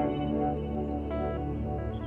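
Soft ambient background music of held notes, the chord changing a couple of times.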